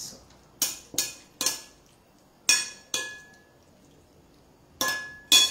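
A metal spoon clinking against a ceramic bowl while mixing salmon tartare: about seven sharp, irregular clinks, a few ringing briefly.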